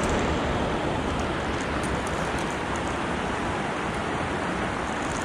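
Steady rush of river water flowing through spillway rapids, an even hiss with no breaks.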